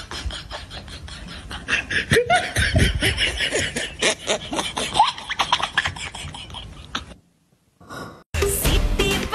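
A person laughing in rapid, stuttering bursts that stop about seven seconds in. After a short silence, music starts near the end.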